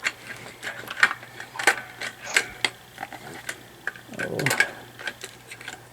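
Irregular clicks and light knocks of small plastic parts being handled during the repair of an animatronic's gear mechanism, over a steady low hum, with a short falling sound about four seconds in.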